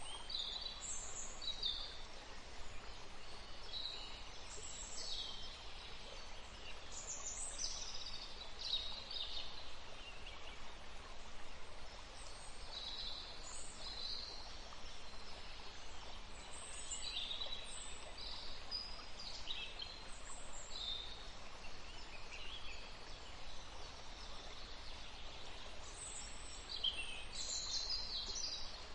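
Small songbirds chirping and singing in many short, high-pitched phrases, several birds overlapping, over a soft steady background hiss.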